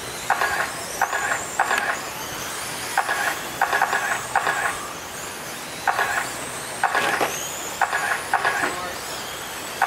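Scale RC late-model cars racing on a dirt oval, their electric motors whining high and rising and falling in pitch as they lap. Short electronic beeps come at irregular intervals from the lap-counting system, at times several in a second.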